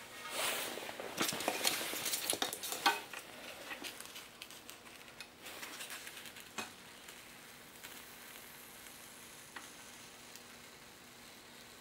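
Rustling and scraping of a pink extruded polystyrene (XPS) foam block handled and slid across a plywood table into a hot-wire foam cutter. The crackly scratching is loudest for the first three seconds, then fainter and more scattered as the block is pushed through the wire, dying away to a faint steady hiss after about seven seconds.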